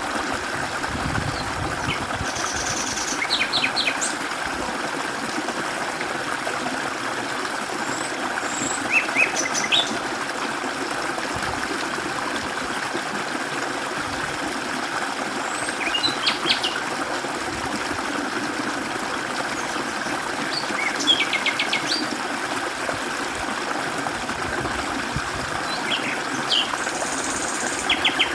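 Mountain stream flowing over rocks, a steady rushing burble, with a small songbird singing short phrases of quick, high repeated chirps about every five to six seconds.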